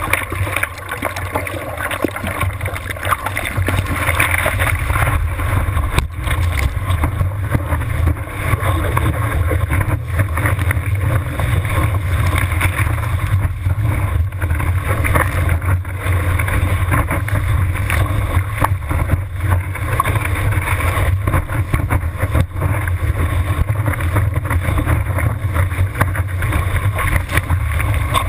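Surf water rushing and splashing around a surfboard-mounted GoPro, heard through its waterproof housing as the board is paddled and then rides a wave. A loud, steady rush with a deep rumble underneath.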